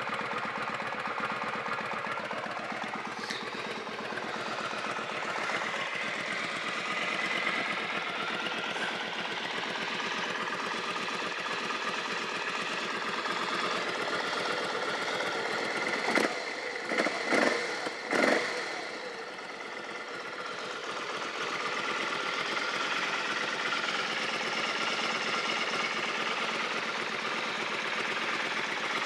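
Kawasaki Vulcan 750's V-twin engine idling steadily, with a slight exhaust gasket leak on the left side. A few seconds past the middle come several short, loud bursts.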